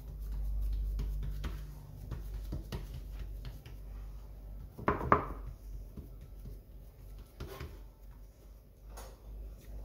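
Fingers pressing shortcrust dough against the sides of a fluted ceramic tart dish, with soft taps and rubbing over a low hum, and a louder knock of the dish against the stone counter about five seconds in.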